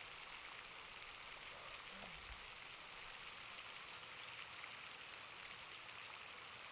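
Faint, steady outdoor hiss, like distant splashing water or light rain, with a couple of brief high chirps.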